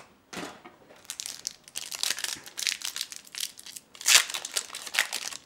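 Foil wrapper of a Tales of Aria trading-card booster pack crinkling and crackling as it is torn open by hand, in an irregular run of crackles that is loudest about four seconds in.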